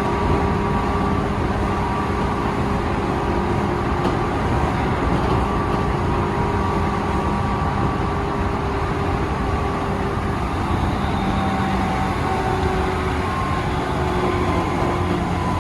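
Tobu 9000 series electric train car MoHa 9204 running at speed: a steady rumble with several held whining tones that step in pitch now and then. This car is known for an abnormal running noise that appears only in summer.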